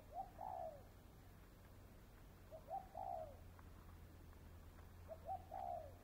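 Spotted dove cooing: three short coo phrases about two and a half seconds apart, each a brief note leading into a longer falling note.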